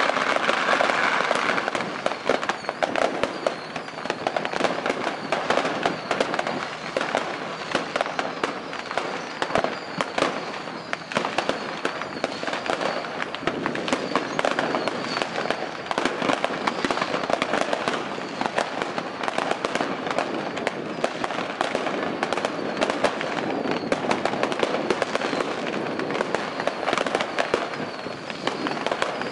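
Long strings of firecrackers going off on fishing boats across the harbour: a dense, unbroken rapid crackle of small bangs.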